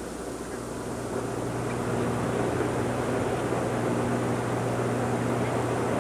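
Low, steady drone of an aircraft engine overhead, growing gradually louder.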